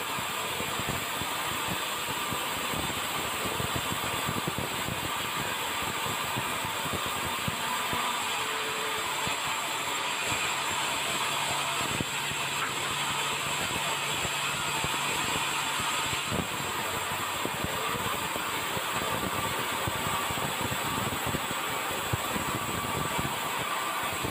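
Steady mechanical running noise, like a machine or vehicle running, with a faint rapid clatter of small clicks.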